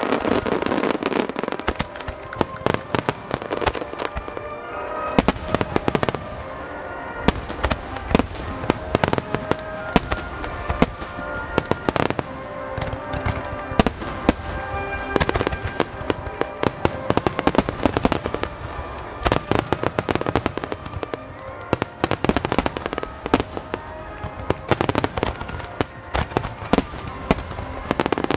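Fireworks display: many shells launching and bursting in quick succession, a dense run of sharp bangs and crackles. Music plays underneath.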